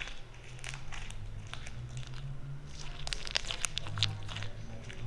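Homemade slime being squeezed and pulled in the hands, giving a run of small sticky clicks and crackles that thicken about three to four seconds in, over a steady low hum.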